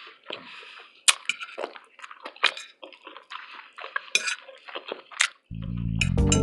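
Close-miked mouth sounds of eating: wet chewing, lip smacks and clicks coming irregularly. About five and a half seconds in, louder music with guitar, bass and drums starts.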